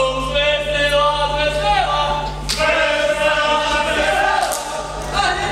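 A group of voices singing a Slovak folk song together in long held phrases, each ending in a downward slide; a new phrase starts about halfway through.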